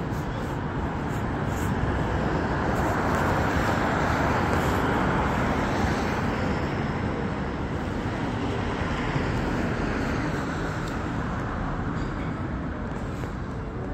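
Street traffic: a vehicle passing, its noise swelling over the first few seconds, loudest around the middle, then fading away.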